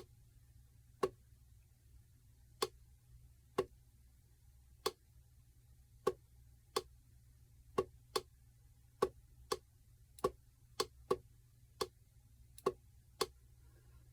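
Plastic push button on a digital calendar clock being pressed over and over, about twenty short clicks at uneven intervals, each press stepping to the next screen.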